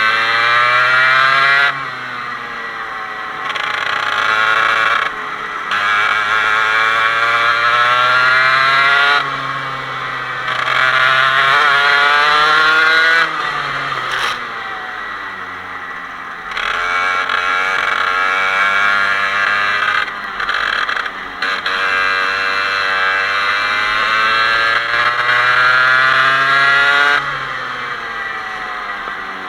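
125cc Parilla two-stroke kart engine at racing speed, its pitch climbing for a few seconds at a time as it accelerates and then dropping back as the throttle comes off, again and again over the laps.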